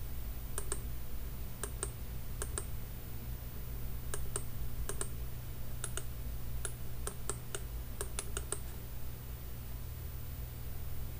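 Wireless Bluetooth mouse buttons being clicked, about a dozen quick clicks, many heard as a press-and-release pair, stopping about eight and a half seconds in. A steady low hum runs underneath.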